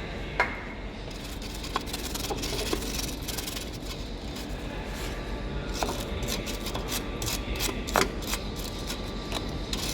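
Tools being handled against metal car parts: scattered clicks and knocks over a steady background, with a quicker run of light clicks in the second half.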